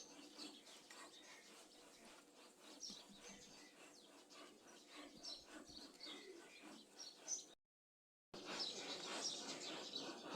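Faint birds chirping in the background, with soft scattered ticks. The sound cuts out completely for under a second a little past the middle, then the chirping comes back a bit louder.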